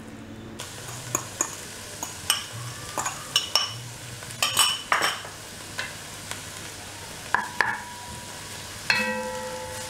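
Celery, onion and garlic sizzling as they sauté in a pot. The sizzle rises about half a second in, while a spatula and then a wooden spoon stir, scrape and knock against the pot. A sharper knock near the end leaves a brief ringing tone.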